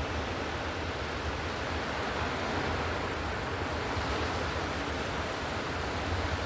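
Ocean-wave white noise: a steady, even rushing hiss of surf with a low rumble beneath, with no single wave breaks standing out.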